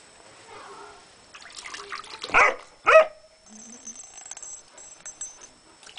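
Young Dobermann barking twice, about half a second apart, a little over two seconds in.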